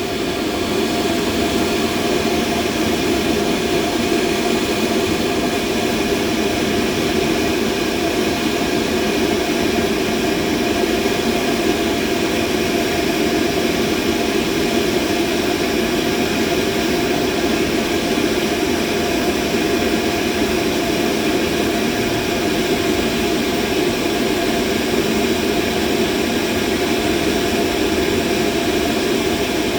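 Steady mid-frequency machine noise: a continuous mechanical rush, heaviest in the lower middle range, with a few faint steady tones running through it. It settles to full level within the first second, then holds unchanged.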